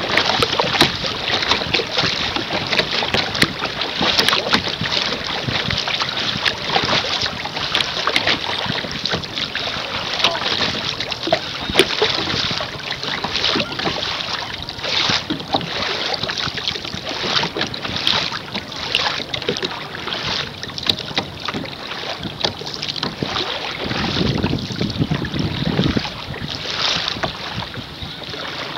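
Water splashing and slapping against the bow of a canoe moving through choppy water: a continuous dense crackle of small splashes, with wind buffeting the microphone.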